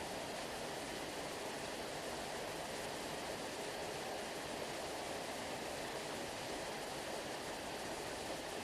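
Steady, even rushing of water, like a waterfall, with no rise and fall of breaking waves.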